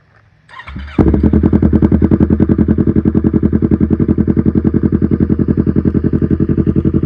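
A custom-built motorcycle's engine starts about a second in, catching after a brief rising crank. It then runs loud and steady at idle with a rapid, even beat.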